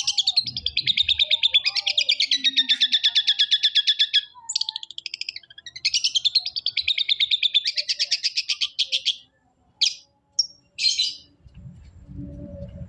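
Long-tailed shrike (cendet) singing: fast trills of repeated high notes, about eight a second, in two long runs with a short break between them, then a few brief separate calls. A low rumble and hiss come in near the end.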